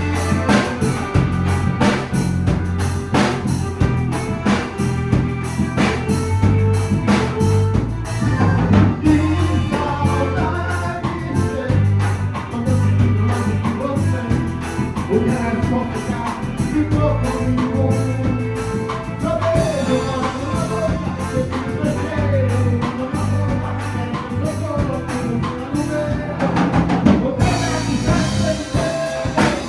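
A band playing a song at rehearsal: drum kit keeping a steady beat over a bass line, with a voice singing the melody.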